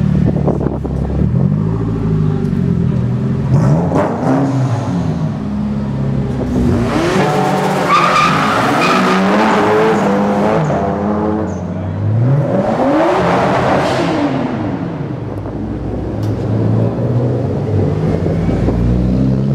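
Modified Japanese performance cars accelerating hard through a concrete tunnel, exhausts loud. The engine pitch climbs and falls through two full-throttle runs in the middle, with a lower, steady engine rumble before and after.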